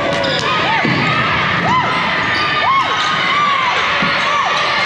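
Basketball sneakers squeaking on a gym floor during play: a string of short squeaks, each rising then falling in pitch, over steady crowd noise, with a ball bouncing.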